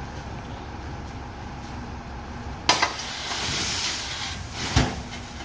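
Loaded sand lorry's engine idling with a steady rumble; about halfway through a sudden sharp burst of air-brake hiss, a longer hiss after it, and near the end a second sharp burst with a low thump.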